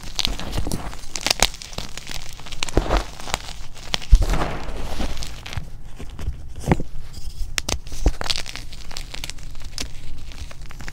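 Hands crushing and crumbling blocks of chalk and reformed chalk into a bin of loose chalk powder: a run of soft crunches and crackles, with one sharper, louder crunch about four seconds in.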